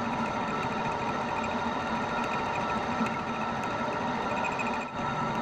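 Metal lathe running steadily, its spindle and chuck turning with a steady whirring hum and whine; the level dips briefly about five seconds in.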